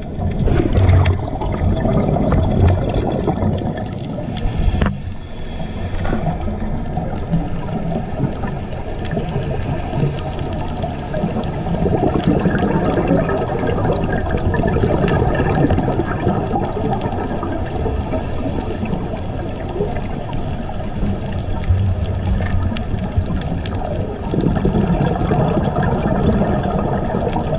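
Underwater recording: steady rushing, bubbling water noise, swelling and easing every few seconds.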